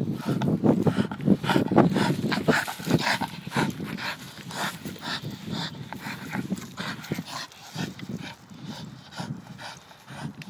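Staffordshire bull terrier vocalising in short, rapid bursts, a few a second, louder in the first half.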